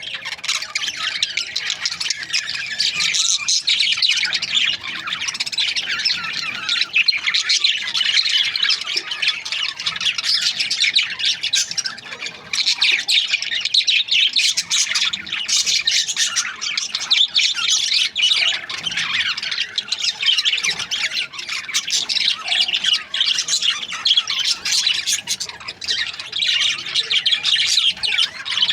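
Many budgerigars chirping at once in a dense, unbroken chatter, cutting in suddenly at the start.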